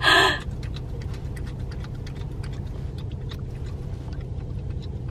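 French bulldog licking whipped cream from a small cup, heard as a run of quick wet ticks and clicks, over a steady low rumble inside a car. A short rustling burst right at the start.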